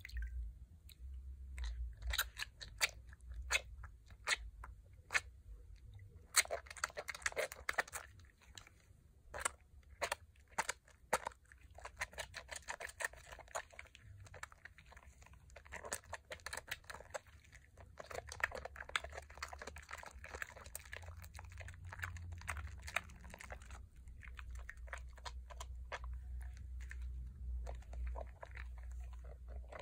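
Wet hands rubbing a bar of Pears transparent soap in water, working up a thick lather: irregular sticky squelches and sharp wet clicks, with longer spells of busy rubbing.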